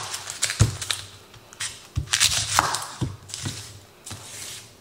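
Red onions being prepared on a wooden cutting board: irregular knocks of a chef's knife cutting through onion onto the board, and the crackle of dry papery onion skin being torn and peeled off by hand.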